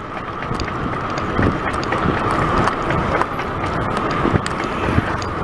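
Riding noise from a bicycle rolling along a paved road: a steady rush of wind and road noise on the handlebar-mounted microphone, with small rattles and knocks scattered through.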